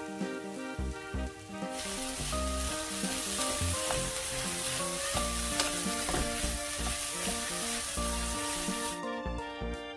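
Oyster mushrooms and pepper strips sizzling in a nonstick frying pan as they are stirred, a steady hiss that starts about two seconds in and cuts off suddenly about a second before the end. Background music plays throughout.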